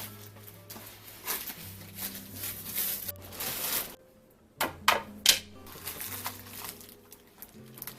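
Plastic food packaging rustling and crinkling as groceries are handled, with two sharp clacks about five seconds in, over soft background music.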